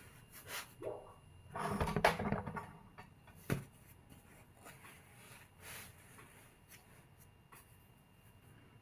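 Scattered light knocks and rustling of things being handled, with a louder rustling clatter about two seconds in and a single sharp click about a second later.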